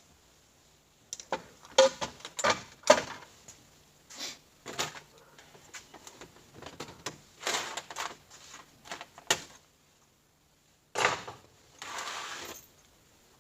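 Metal transmission parts clinking and clattering as they are handled and set down, a string of sharp knocks, some ringing briefly, with the sound dropping out completely for about a second near the end.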